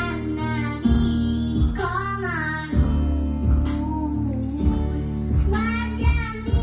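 A child singing a melody over an instrumental backing with a steady beat.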